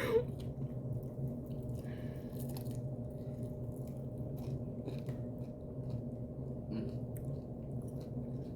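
Close-up chewing and biting: wet mouth smacks and small crunches of people eating chicken wings, irregular throughout, over a steady low hum.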